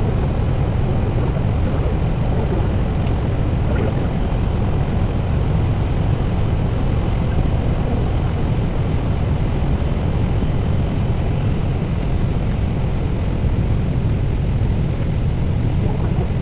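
Steady in-flight roar on the flight deck of an Airbus A320neo on approach, airflow and engine noise with a heavy low rumble.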